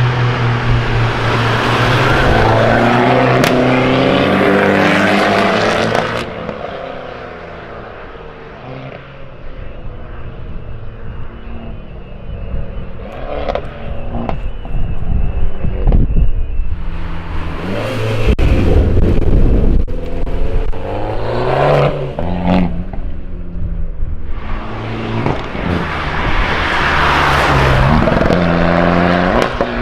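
Modified Fiat Abarth 595C's turbocharged four-cylinder engine revving and accelerating through its exhaust in several surges, with a quieter lull in between and sharp exhaust pops and crackles scattered through.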